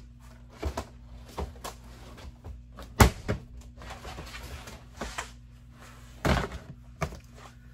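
Plastic storage bins being handled and shifted: a string of knocks and thunks as lids and boxes bump together, the sharpest about three seconds in and a longer, heavier thud a little after six seconds, over a steady low hum.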